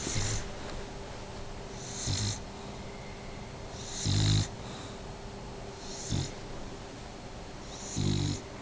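A pet snoring in its sleep: five snores about two seconds apart, the one in the middle the loudest.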